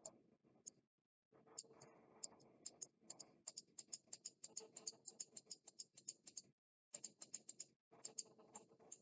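Faint, rapid clicking of a computer keyboard and mouse, several clicks a second in irregular runs, over a faint background hiss.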